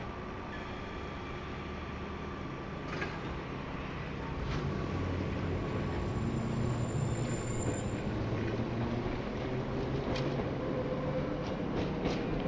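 Ex-1938 London Underground tube-stock electric train (Island Line class 483) running through the station: a low rumble of motors and wheels that grows louder about four seconds in, with sharp clicks of wheels over rail joints and a brief high squeal in the middle.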